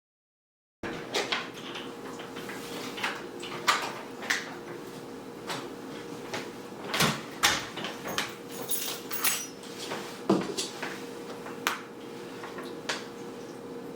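Irregular knocks and clicks of things being handled in a small room, such as doors or cupboards, over a steady low hum. It starts abruptly about a second in.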